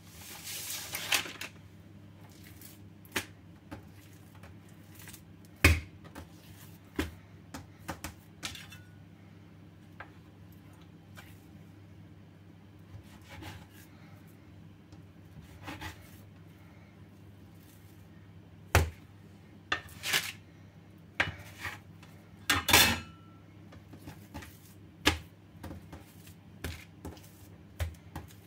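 Kitchen handling noise while bread dough is shaped and divided: sparse taps and knocks of hard things on a stone countertop, a short rustle near the start and another later on, over a low steady hum.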